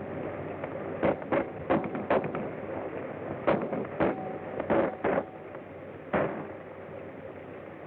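Gunfire exchange on an early-1930s film soundtrack: about nine irregular shots over some five seconds, heard over the steady hiss of the old recording.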